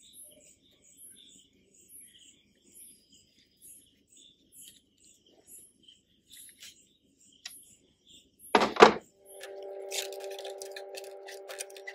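Faint insect chirping, a short high chirp about one and a half times a second. Near nine seconds in comes one loud thunk, then a steady hum with light metallic clicking over it.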